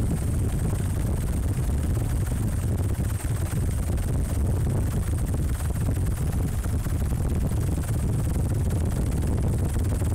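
Helicopter running steadily, heard from aboard: a dense low rumble of rotor and engine with a thin, steady high whine above it.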